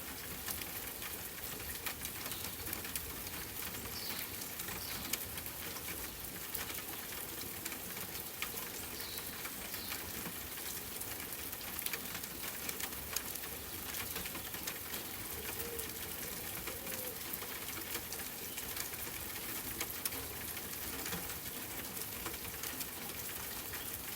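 Steady rain falling, with many small drop hits pattering. A few faint, short, high bird chirps come about 4 and 9 seconds in.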